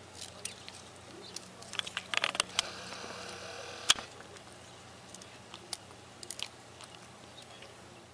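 A cat chewing and biting on garden plant stems, with crackling of dry twigs and mulch under it: scattered sharp clicks and crunches, busiest a couple of seconds in, with one louder snap near four seconds.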